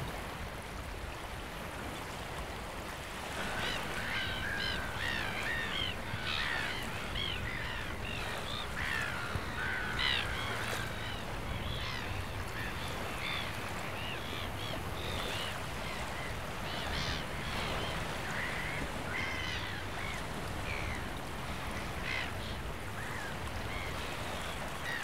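A steady rush of water, with many short bird calls over it starting about three seconds in.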